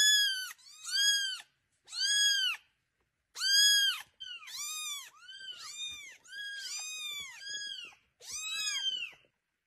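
Two young kittens meowing over and over: about ten high-pitched cries of about half a second each, each rising then falling in pitch, some overlapping in the middle. They are hungry kittens crying to be fed.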